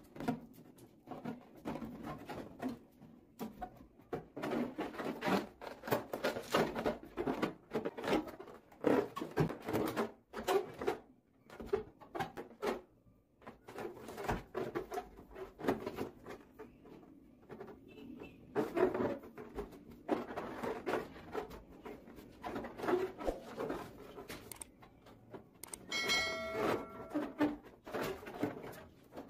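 Hands handling an inflated rubber balloon and a thin string: irregular rubbing, rustling and light taps. A short ringing tone with overtones near the end.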